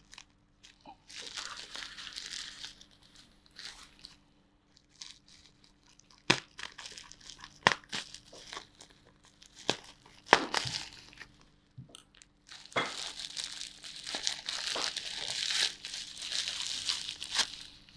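Packaging of a new RAM module being wrestled open by hand: crinkling rustles broken by sharp clicks and snaps, with the longest stretch of crinkling in the last five seconds.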